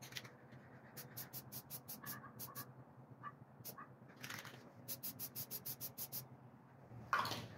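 A spray paint can being shaken, its mixing ball rattling in two runs of quick clicks, with short hisses of red spray paint released onto the helmet in between and near the end.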